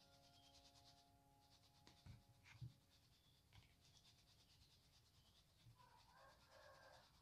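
Very faint scratchy rustle of flour being shaken through a mesh sieve. A held musical note fades out over the first three seconds, and there are a couple of soft knocks about two seconds in.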